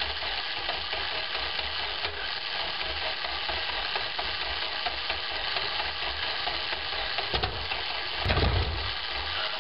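Continental W670 seven-cylinder radial engine being turned over for a first start: a steady hiss over an uneven low rumble, with heavier low bursts near the end.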